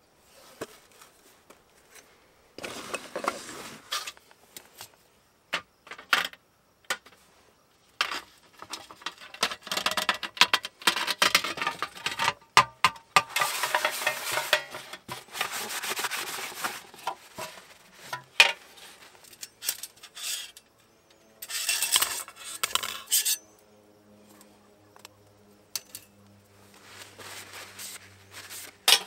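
Thin metal panels and ash tray of a Firebox Freestyle folding stove clinking, scraping and rattling as it is taken apart and packed, with many sharp metal clicks and a long stretch of scraping about halfway through.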